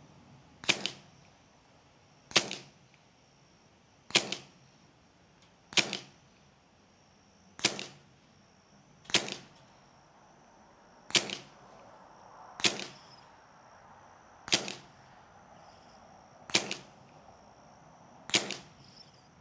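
Hatsan Velox semi-automatic PCP air pistol in .22 calibre firing shot after shot, eleven sharp reports about every one and a half to two seconds. Each report is followed a split second later by a fainter second crack.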